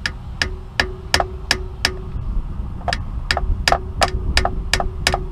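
Light metallic taps, about three a second in two runs, each with a short ring: a new pinion seal being tapped home into the rear differential housing of a 2006 Jeep Commander, seated until it bottoms out.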